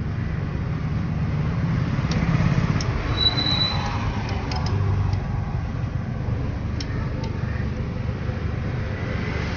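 Steady low rumble of outdoor background noise with a few faint clicks scattered through it, and a brief high thin tone about three seconds in.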